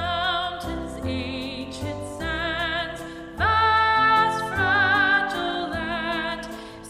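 Slow music of long held notes with vibrato over a sustained low accompaniment, moving to a new note about once a second; it swells louder about three and a half seconds in.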